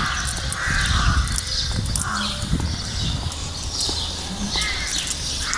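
Birds calling: short harsh calls repeating several times, with higher chirps between them, over a low rumble.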